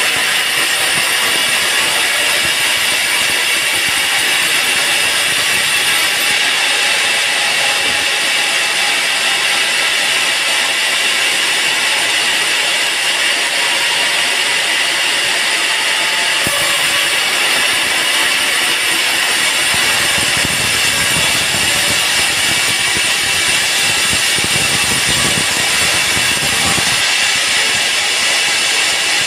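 Band sawmill cutting a teak log, a steady, loud sawing noise.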